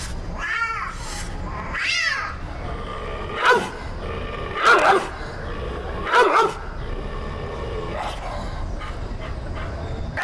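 A man imitating a dog and cat fight with his voice through hands cupped over his mouth. Rising-and-falling yowling cries come first, then several short, sharp barks.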